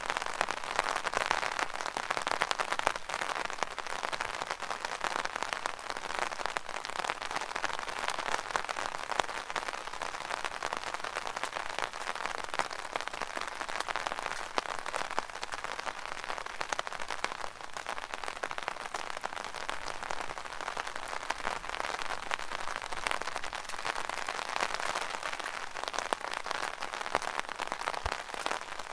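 Rain falling steadily on an umbrella canopy: a dense, even run of small drop hits on the fabric.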